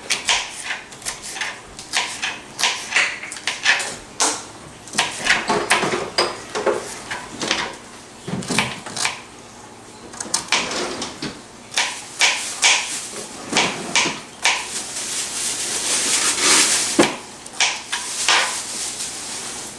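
Kitchen knife chopping on a plastic cutting board: a run of irregular knocks, with some brief clattering of kitchen items.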